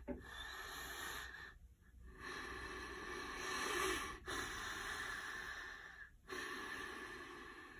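A man breathing heavily, about four long breaths with short pauses between them, while he struggles with grief and holds back tears.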